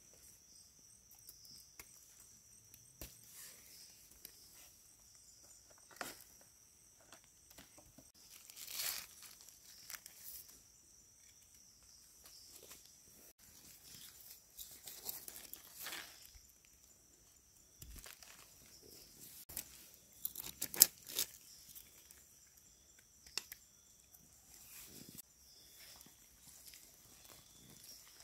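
Hands rustling and crackling through dry forest leaf litter while picking mushrooms, in scattered bursts with a cluster of sharp clicks about two-thirds of the way through. A steady high-pitched insect drone runs underneath.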